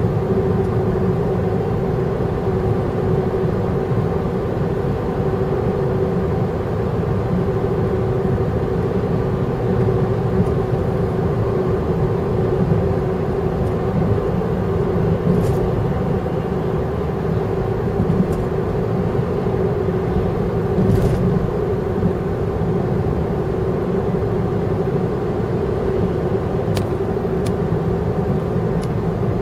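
Car driving at a steady speed, heard from inside the car: a constant low rumble of road and engine noise with a steady hum over it.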